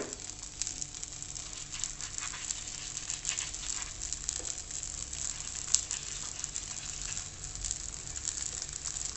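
Flatbread frying in a lightly oiled nonstick wok: a steady fine sizzle and crackle, with one sharper tick a little past the middle.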